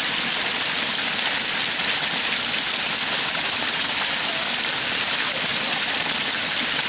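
Garden waterfall: water pouring over stones into a pond with a steady, unbroken rush.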